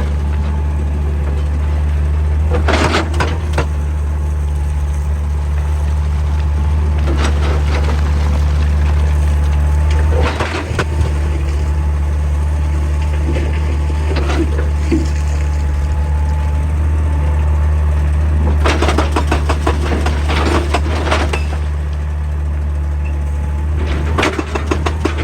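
Excavator's diesel engine running steadily, with several short clusters of knocks and rattles from rock and metal.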